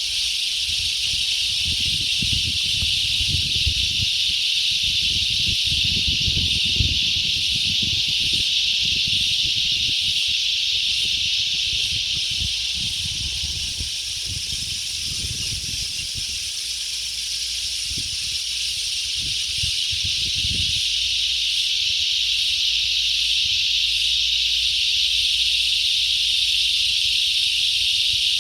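Steady high-pitched hiss of an insect chorus, with wind buffeting the microphone in low rumbling gusts that die away about two-thirds of the way through.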